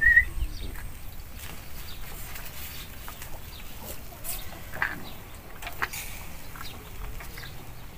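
A short, high rising animal chirp right at the start, then faint scattered clicks and eating sounds, hand-eating rice and grilled pork, over quiet rural background.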